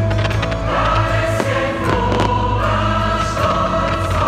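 Choral music: a choir singing long held notes over a steady deep bass.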